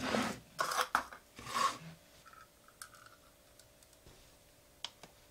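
Plastic bottles of casting resin handled on a workbench: several scraping, rattling bursts in the first two seconds, then much quieter, with one sharp click near the end.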